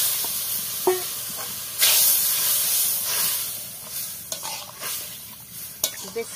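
Fried prawns and freshly added coconut milk sizzling in a metal kadai while a metal spatula stirs them. The sizzling hiss surges about two seconds in, then slowly dies down, with a few light scrapes and taps of the spatula on the pan.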